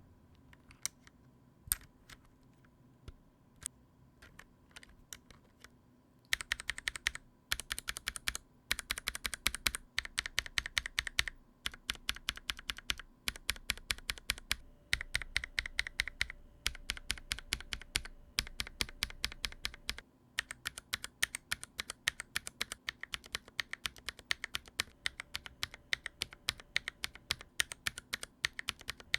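Invyr Holy Panda tactile mechanical keyboard switches on a NovelKeys NK65 Entry Edition keyboard, spammed rapidly in a typing sound test of stock, lubed and spring-swapped, and lubed, spring-swapped and filmed switches. Scattered single keystrokes come first. Fast runs of clacking start about six seconds in, with brief breaks between the runs.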